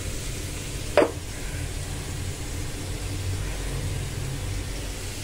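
A single short clink of a ceramic jar lid about a second in, as the salt jar is opened, over a steady low rumble.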